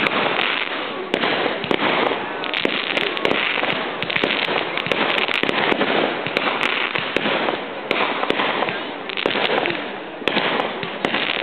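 Fireworks going off in quick succession, with dense, continuous crackling from gold crackling stars that swells and fades as one burst follows another.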